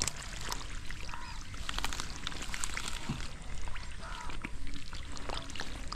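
Shallow muddy water sloshing and splashing in many small irregular spatters as people wade and grope through a drained pond by hand.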